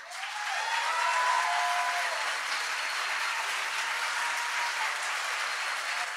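Concert audience applauding, breaking out suddenly and holding steady as the final song ends.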